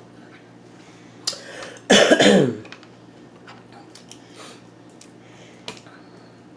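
A person coughs once, loudly, about two seconds in, with a few light clicks before and after it.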